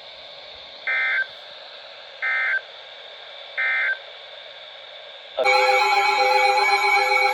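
Three short bursts of EAS (SAME) digital data tones, about a second and a half apart, over a steady radio hiss: the end-of-message signal that closes the tornado warning. About five seconds in, a loud electronic alert tone with several sweeping pitches starts.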